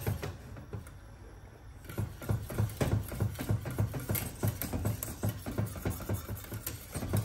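Wire whisk beating thickening pastry cream in a stainless steel saucepan, clinking and scraping against the pot in a steady rhythm that grows stronger after about two seconds.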